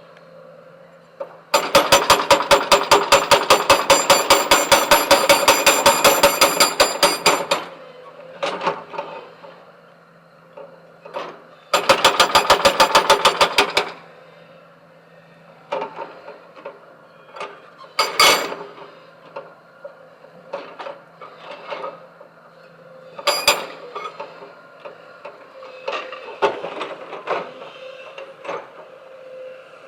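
Backhoe loader's hydraulic breaker hammering stone in two long runs of rapid, evenly spaced blows, the first about five seconds long and the second about two. After these come scattered single knocks and clatter.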